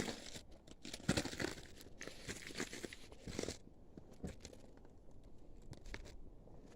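Irregular crunching and scraping of footsteps scrambling over rough, loose lava rock, dense for the first three and a half seconds and then dropping to a few scattered clicks.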